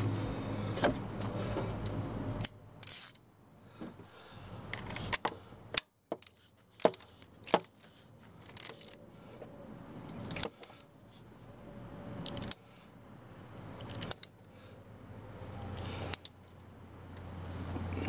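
Hand tools clinking against metal parts in a truck's engine bay: a dozen or so sharp, irregularly spaced clicks and clinks, some with a short ring.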